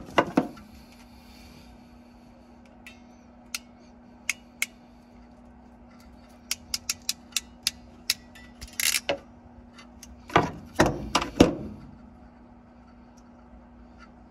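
Small plastic T-tap connectors and a crimping tool being handled while the connectors are crimped onto a thin wire: scattered sharp clicks, a quick run of them about six to eight seconds in, and louder knocks and fabric rubbing about ten to eleven seconds in. A steady low hum runs underneath.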